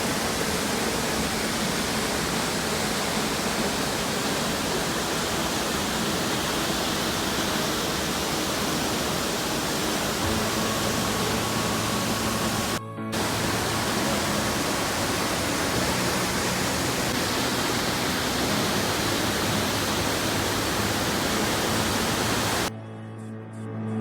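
Waterfall pouring, a steady, even rushing noise, with soft background music faintly underneath. It breaks off for a moment about halfway through, and near the end the water sound stops and the music carries on alone.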